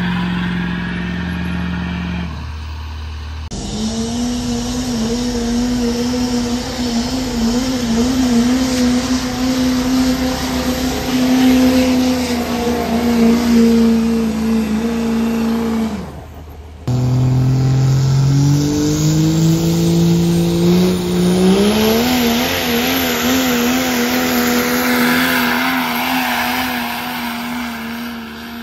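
Diesel pickup truck engine pulling a sled at full throttle, held at high revs with a wavering drone. After a brief break it climbs in steps back to high revs, with a thin rising whistle above the engine, and it fades near the end.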